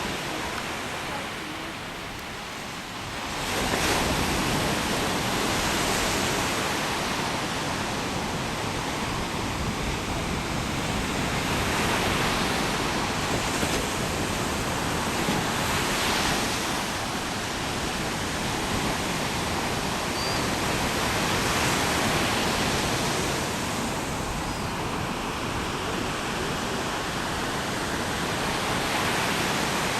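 Ocean surf washing in: a steady rush of noise that swells every few seconds and grows louder about three and a half seconds in.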